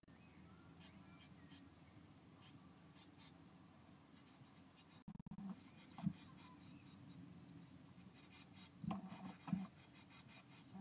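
Faint scratching and rustling of blue tit nestlings shifting in the nest material inside a nest box, with a few louder knocks about halfway through and again near the end.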